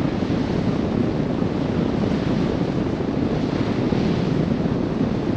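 Strong wind buffeting the microphone at the front of a moving river boat: a steady, heavy low rumble.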